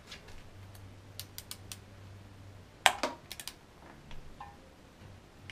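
Scattered ratcheting clicks and metal clinks from a small inch-pound torque wrench and socket as the clutch pressure-plate bolts are snugged down; one sharp click about three seconds in is the loudest.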